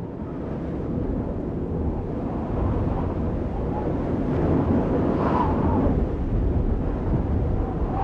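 Steady low rushing noise, like wind or surf, with faint brief whistling tones about five seconds in.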